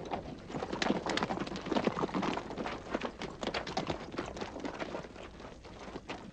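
Footsteps of a group of people walking on hard ground: many irregular, overlapping steps that thin out and grow quieter after about five seconds.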